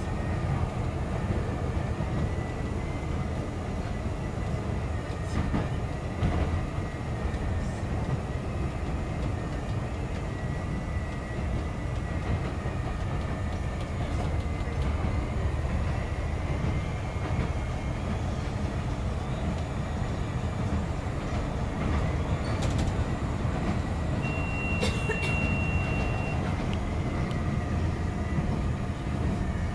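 Chicago 'L' train car running along elevated track, heard from inside: a steady low rumble with a wavering high whine over it and a few sharp clicks. A short high steady tone sounds briefly about three-quarters of the way through.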